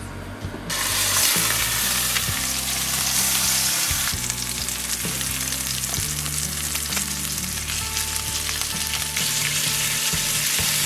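Red mullet fillets and a scallop frying in oil in a pan, sizzling with a steady hiss that starts abruptly just under a second in.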